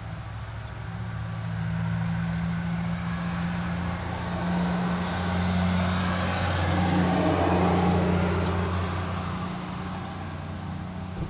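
A motor vehicle's engine passing by: a low steady hum that swells over several seconds, is loudest about two-thirds of the way in, then fades. A short click sounds near the end.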